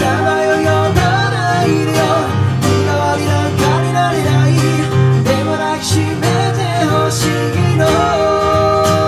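Acoustic guitar playing chords under a sung melody, with long held notes that waver in vibrato.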